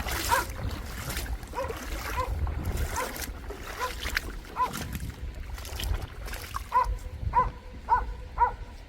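A dog barking in short, repeated yips, faster near the end, over the low rumble of wind on the microphone.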